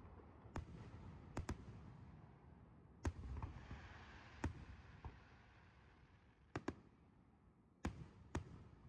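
Distant aerial fireworks shells bursting: about ten sharp bangs at irregular intervals, some in quick pairs, with a hiss after the loudest bang about three seconds in.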